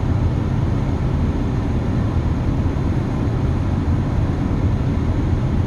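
Wind buffeting the microphone: a steady, fluctuating low rumble with no distinct events.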